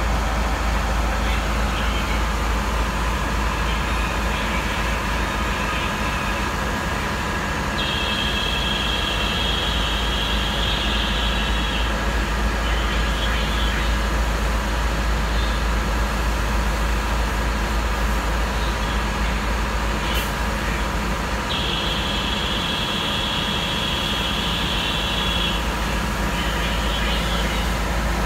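Navistar MaxxForce DT diesel engine running steadily during a parked forced regeneration of the diesel particulate filter, with the exhaust aftertreatment over 1,100 °F. A high, steady whine comes in twice for about four seconds each.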